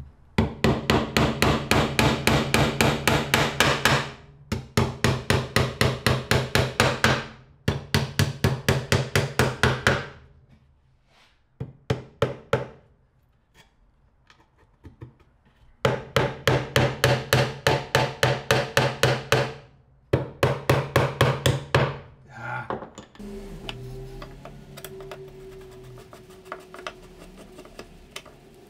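Small hammer driving nails into a wooden treadle board, in quick runs of sharp blows about four a second, each run broken off by a short pause. The blows stop a little over 20 seconds in, and only faint, quieter handling sounds follow.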